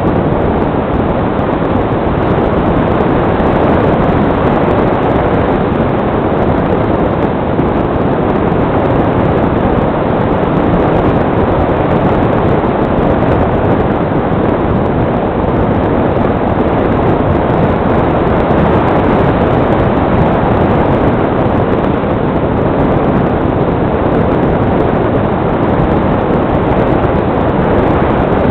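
Steady rush of airflow over the microphone of a camera mounted on a flying Fox model glider. It is an even, unbroken noise, with no motor note in it.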